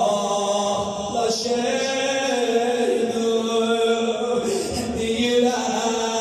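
A man's voice chanting a Persian devotional recitation into a microphone and amplified, with long held notes and gliding pitch.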